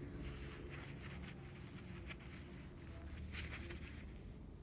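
Faint handling noise of a rusty ball-peen hammer being picked up and turned over on a workbench: light scrapes and a couple of soft taps.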